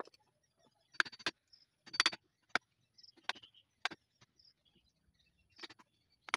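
Hand chisel cutting into a block of wood to hollow out a bowl: a series of short, sharp cracks at irregular intervals as chips are split and levered away, about eight in six seconds.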